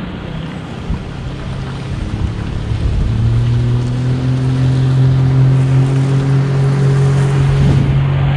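A boat motor comes on about two seconds in, rises slightly in pitch and settles into a steady hum, with wind noise on the microphone underneath.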